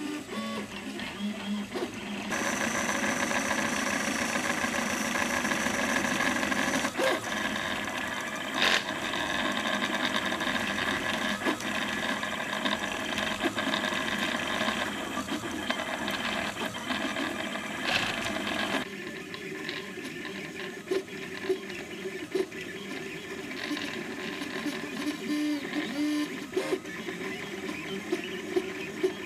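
Home-built RepRap Prusa i3 3D printer printing: its stepper motors buzz and whine in shifting tones as the print head and bed move, over the steady noise of its cooling fans. The sound gets louder and brighter about two seconds in and drops back about two-thirds of the way through, with short clicks near the end.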